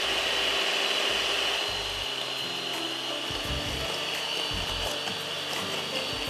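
Electric hand mixer running steadily with a high whine, its beaters whisking eggs in a glass bowl.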